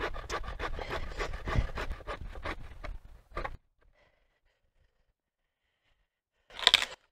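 Bow saw cutting through a wooden pole with quick, even strokes, about three or four a second. The sawing stops about three seconds in after one last stroke. A brief loud noise comes near the end.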